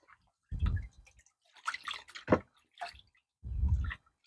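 Water sloshing and dripping in a gold pan as it is handled, with a few dull knocks and one sharp click a little past the middle.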